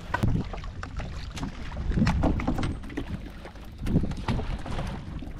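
Wind buffeting the microphone over water sloshing against a small wooden fishing boat's hull, swelling every couple of seconds, with scattered light knocks and splashes.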